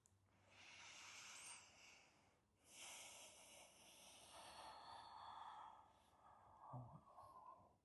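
Faint, slow breathing: three long, drawn-out breaths.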